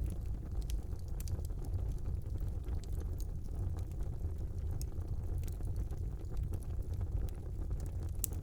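Wood fire burning in a fireplace: a steady low rumble of the flames with scattered sharp crackles and pops of burning logs.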